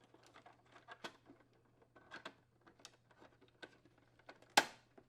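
Small plastic clicks and taps as the refrigerator dispenser's water line is pressed into its retaining clips, then one sharp snap about four and a half seconds in as it seats.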